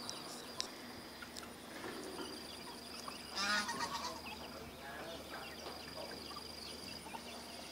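Faint outdoor background with one short call from distant poultry about three and a half seconds in, and scattered faint bird chirps.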